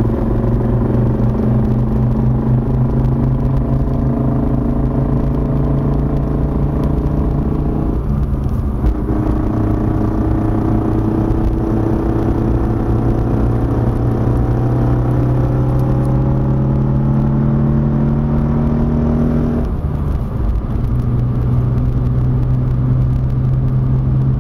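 BMW E36 325 drivetrain running under way, a steady low drone with higher tones that climb slowly and drop back twice, about eight seconds in and near twenty seconds. It carries the suspect noise that the owner, at first glance, puts down to the gearbox.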